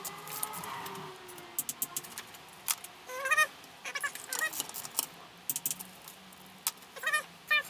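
Ratchet and torque wrench clicking on the gearbox case bolts as they are tightened in sequence, with several short squeaky chirps in between.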